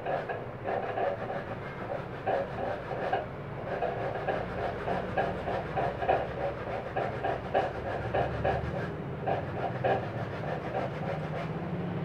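Santol fruit being grated on a metal box grater: quick, even rasping strokes, about three to four a second, with a couple of short pauses.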